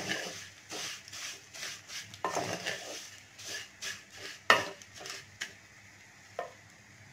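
Wooden spatula stirring fine vermicelli frying in a metal kadhai, scraping and knocking against the pan in quick irregular strokes, with one sharp knock about halfway through. The strokes thin out near the end.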